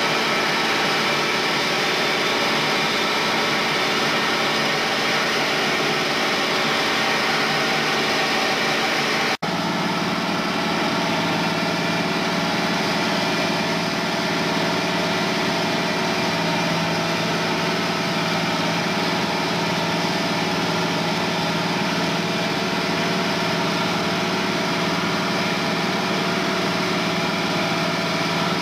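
Allis-Chalmers 8070 tractor's six-cylinder diesel engine running steadily under load while pulling a disc harrow, heard from the cab. The sound cuts out for an instant about nine seconds in and resumes with a slightly deeper tone.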